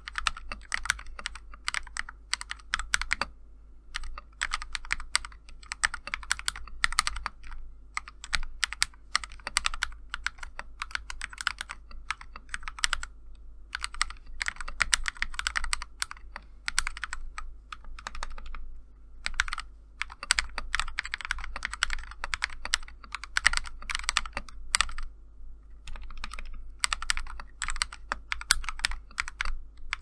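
Typing on a Kemove Snowfox 60% mechanical keyboard fitted with Akko Rose Red linear switches and Epomaker Iceberg XDA-profile keycaps, its case tape-modded and its stabilisers modded. Keystrokes come in fast runs of several seconds, broken by short pauses.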